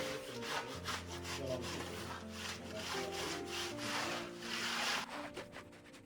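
A hand trowel scraping over a fresh concrete slab being smoothed by hand, in several long strokes that swell and fade, over background music.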